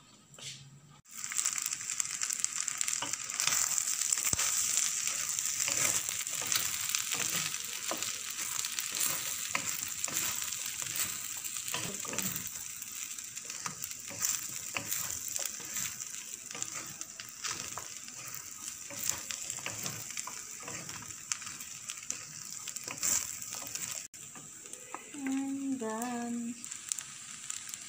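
Fried rice sizzling in a stainless-steel wok as a wooden spatula stirs and scrapes it: a steady hiss full of small scraping clicks, starting about a second in.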